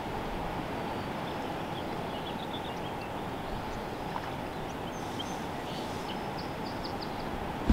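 Steady rushing of river water flowing past, with faint, scattered bird chirps above it and a single sharp knock at the very end.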